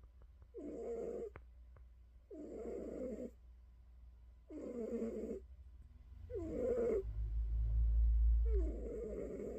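Cat snoring in a slow, even rhythm: five snores, each under a second long, about two seconds apart. Past the middle a deep low rumble swells and is the loudest part for a couple of seconds.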